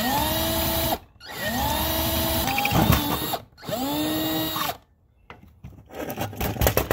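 Power drill enlarging a hole in the door of a Zeiss Ikon Nettar folding camera, run in three bursts that each spin up, hold a steady whine and wind down. It is followed by a run of irregular clicks and knocks.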